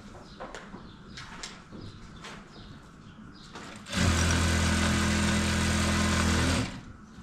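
JACK industrial sewing machine stitching at a steady high speed for about two and a half seconds, starting about four seconds in and stopping abruptly. Before it, faint clicks and rustles of the sequined fabric being handled and positioned.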